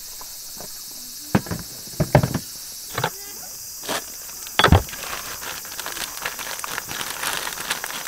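Hard cooler box being opened: a few knocks and clunks of the lid and latches, the loudest a little before halfway, then the crinkling rustle of a plastic bag of ice being taken out and handled.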